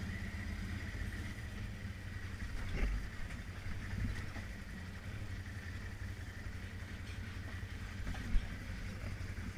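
ATV engine running at low speed while the machine crawls down a rocky trail, with occasional knocks as it rolls over rocks and one sharp thump near the end.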